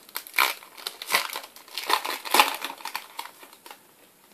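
Plastic wrapper of a Match Attax trading-card packet crinkling and rustling as it is opened, a run of irregular crackles that dies away near the end.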